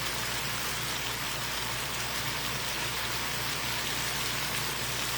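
Chicken searing in a pan, a steady, even sizzle.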